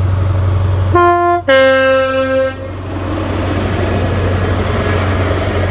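InterCity 125 (HST) Class 43 diesel power car sounding its two-tone horn about a second in: a short higher note, then a longer lower one. A steady low hum runs underneath, and the rumble of the passing train follows.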